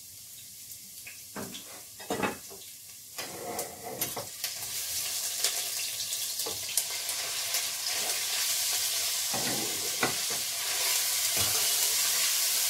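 Raw minced meat tipped into hot oil in a steel pot, sizzling; the sizzle starts about three seconds in and grows steadily louder, with a few knocks at first and scattered clicks of a metal spoon against the pot as it is stirred.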